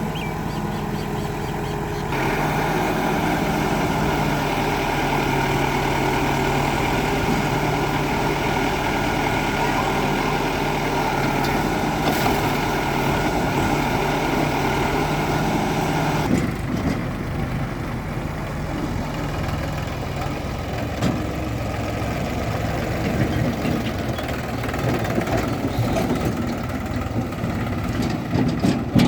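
Backhoe loader's diesel engine running under working load. The engine note rises about two seconds in and eases back after the middle, with short knocks and clatter in the later part.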